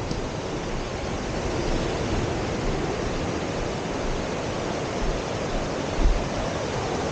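Steady rushing noise of wind over the microphone mixed with surf breaking, with no engine to be heard. Two short low bumps come about five and six seconds in.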